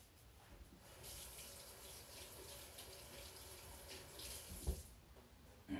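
Faint kitchen faucet running into the sink, starting about a second in and stopping near the end, with a single knock just before it stops.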